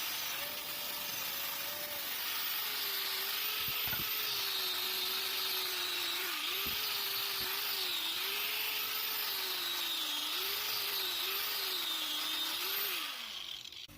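Motor-driven wire brush running and scrubbing rust off old steel hand tools, its motor pitch dipping again and again as the work is pressed against the wheel. It is switched off near the end and spins down.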